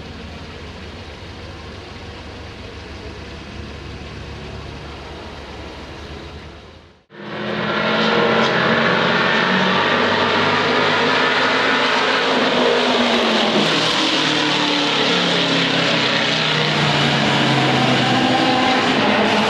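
Race car engines. For the first seven seconds a steady, fainter engine drone; then, after a sudden break, much louder engine notes from several cars rising and falling in pitch as they rev and pass.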